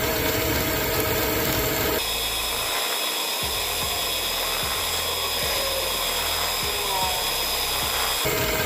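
Motorized line-spooling machine running steadily, spinning an Avet 80 big-game reel as 150 lb braid winds onto the spool. Its whir changes tone about two seconds in and shifts back near the end.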